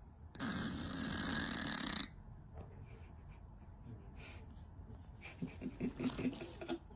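A Scottish Fold cat snoring in its sleep: one long, loud snore starting about half a second in and lasting about a second and a half, then a quick run of short, low snuffling pulses near the end.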